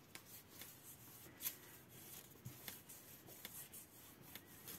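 Faint rubbing and light scratching of a wooden spatula pressed along a paper panel on a card, with soft paper rustles and small ticks.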